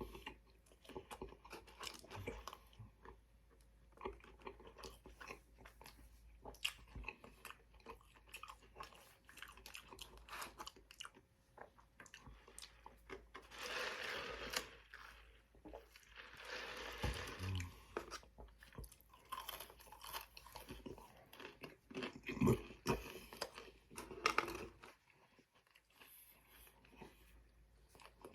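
A man chewing and biting crunchy fast food close to the microphone, a steady run of crunches and mouth clicks, louder for a few seconds about halfway through.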